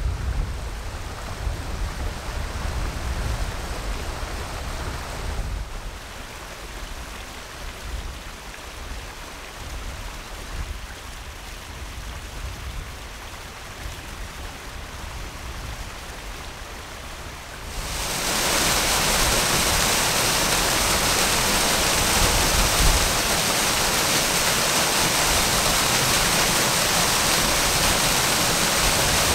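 Rushing water of a small mountain-creek waterfall pouring into rock plunge pools. The rush is soft with a low rumble under it at first, then about eighteen seconds in it switches abruptly to a loud, steady hiss of falling water.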